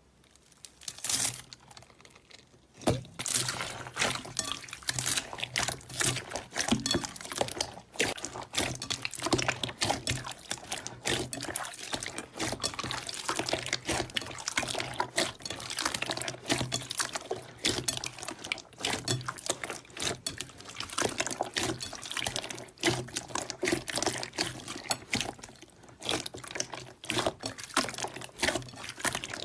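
Slime being squeezed and kneaded by hand: a dense, irregular run of wet clicks, pops and squelches that starts about three seconds in.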